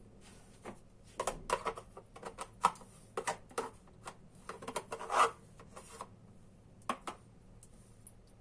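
Kitchen handling noises: an irregular string of short scrapes and knocks, thickest in the first half and petering out to a last couple of knocks near the end.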